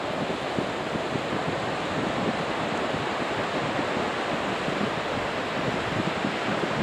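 Strong wind blowing on the microphone, mixed with surf breaking against a stone sea wall and timber groynes: a steady rushing noise without distinct crashes.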